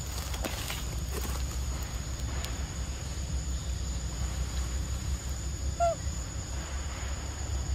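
Outdoor ambience: a steady low rumble and a steady high-pitched whine, with one short falling chirp about six seconds in.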